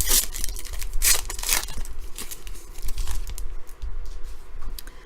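Foil wrapper of a trading-card pack being torn open and crinkled: a few sharp rips in the first two seconds, then softer rustling. A steady low hum sits underneath.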